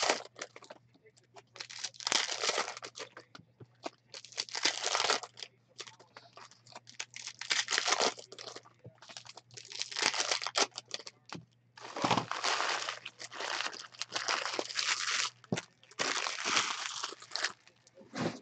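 Foil trading-card pack wrappers crinkling and tearing as packs are handled and opened, in a string of crinkly bursts a second or two long with short pauses between.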